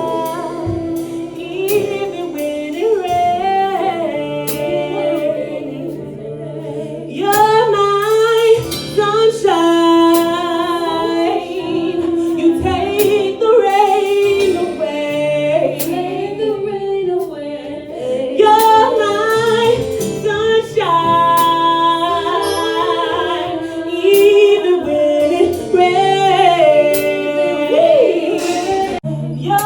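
A woman singing over a backing music track, with long held notes and runs that bend up and down in pitch, over a steady low note.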